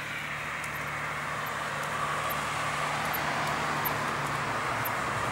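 A car on the road coming closer, its tyre and engine noise growing steadily louder.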